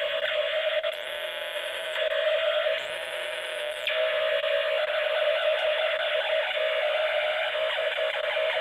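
Circuit-bent electronic chant box ('Buddha box') played through its body contacts on a person's skin, the skin completing the circuit: a steady, distorted electronic drone with a buzzing tone that wavers and dips in level a couple of times.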